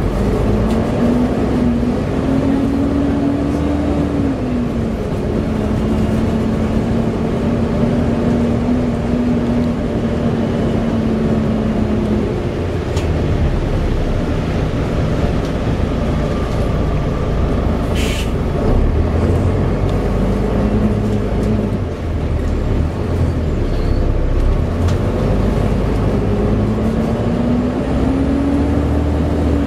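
Volvo B7TL bus's six-cylinder diesel engine and ZF automatic drivetrain under way: a steady low drone with a whine that climbs, drops back about four seconds in, holds level, then fades and returns climbing near the end. A single sharp click about eighteen seconds in.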